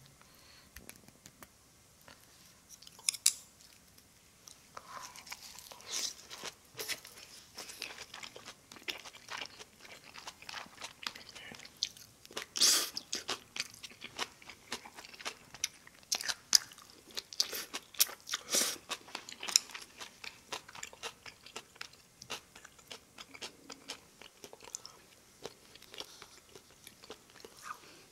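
Close-miked eating sounds: a person chewing and crunching food, with sharp crisp crunches that come thick and fast from about five seconds in.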